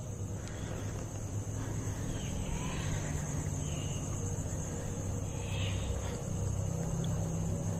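Night-time outdoor ambience with crickets chirping steadily over a low hum, with a few faint, brief indistinct noises in the middle.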